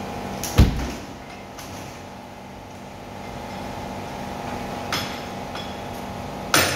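A steady low hum with a few knocks and clicks, the loudest a thump about half a second in and a sharp crack just before the end.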